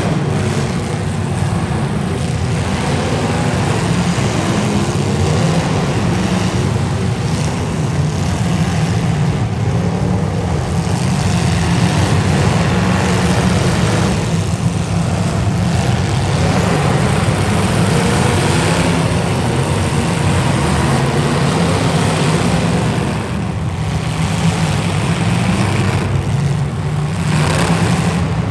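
Demolition derby car engines running, a loud, steady engine din throughout.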